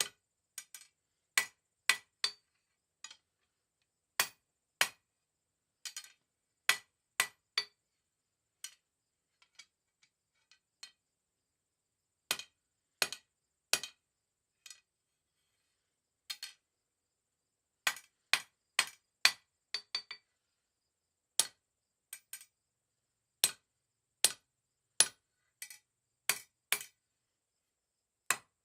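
Hand hammer striking mild steel round bar on an anvil, sharp ringing blows in short runs of two to four, with pauses between the runs.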